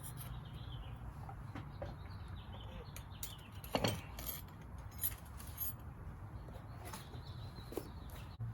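Light metallic clicks and clinks of transmission parts and tools being handled during reassembly, with one louder knock about four seconds in, over a steady low hum.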